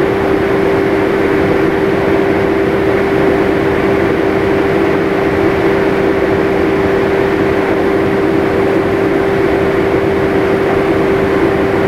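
Steady machine hum with a constant mid-pitched tone over a noisy background, unchanging throughout.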